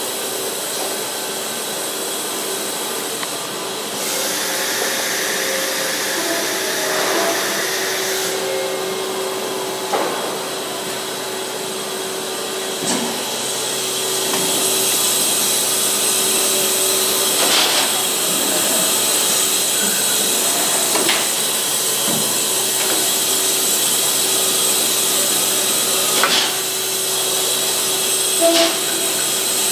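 Deckel Maho DMC 165V vertical machining center running: a steady whooshing hiss with a constant hum tone, getting louder twice along the way, with a few sharp clicks and knocks scattered through.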